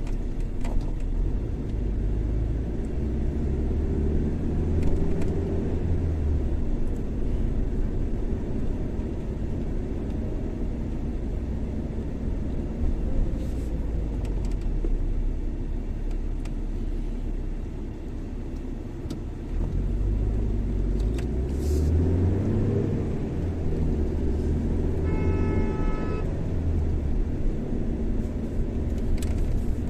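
Steady low road and engine rumble of a moving car, swelling and easing with the drive. About 25 seconds in, a short pitched tone sounds for about a second.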